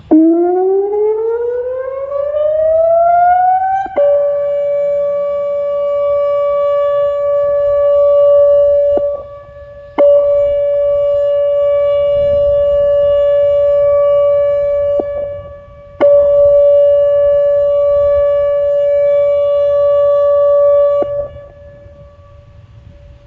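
ATI HPSS-32 electronic warning siren sounding a test with a custom tone. It opens with an unusual windup, blamed on the replacement controller fitted after the original failed: a pitch rising smoothly for about four seconds that then steps abruptly down to a steady, loud tone. The tone holds, dipping briefly in loudness twice, and turns much quieter near the end.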